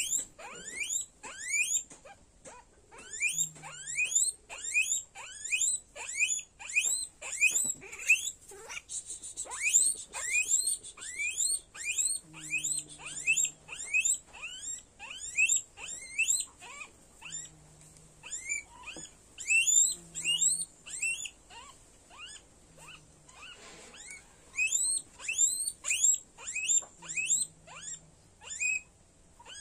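Guinea pig squealing over and over while held down by hand: quick, high-pitched whistling calls, about two a second, without pause.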